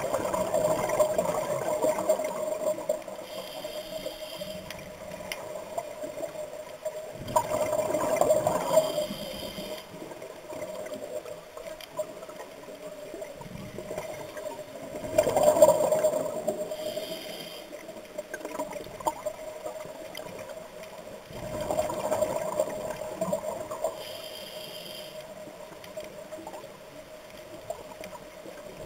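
Scuba diver breathing through a regulator underwater: a breath about every seven seconds, each a short hiss through the regulator and a burst of exhaled bubbles, four times, over a steady hum.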